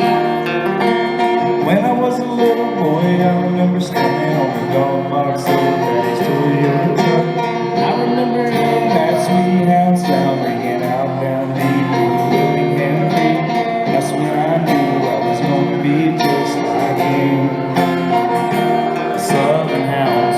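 Live country music led by guitars, strummed chords under a bending lead line.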